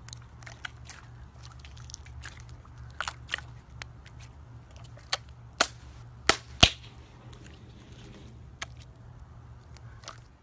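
Slime being pressed and squished by hand, giving irregular sharp pops and clicks as air pockets burst, a cluster of louder pops a little past halfway, over a steady low hum.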